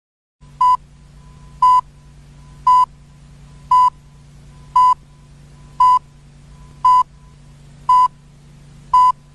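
Nine short electronic beeps, all the same high pitch, about one a second, over a steady low hum.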